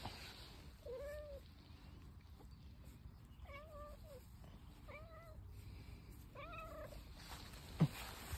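A long-haired cat meowing four times in short calls, spaced a second or two apart. Near the end there is one sharp thump, the loudest sound.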